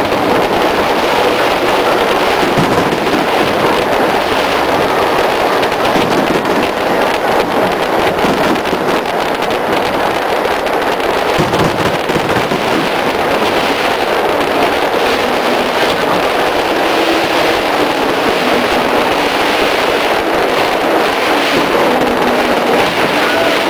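Aerial fireworks display heard as a loud, unbroken wash of dense crackling with no single bang standing out.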